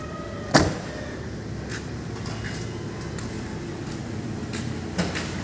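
A car's front door slammed shut, one sharp bang about half a second in, followed by a few faint clicks and a smaller thump near the end.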